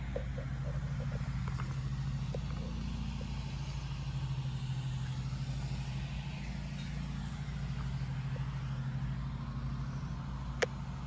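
Steady low hum of a motor running without change. A single sharp click comes near the end.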